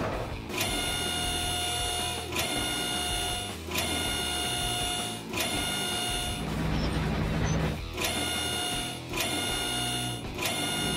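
Cartoon machine sound effect: a steady, high-pitched motor whine that comes in stretches of about a second and a half, cut by short clicks between them, over a low engine hum.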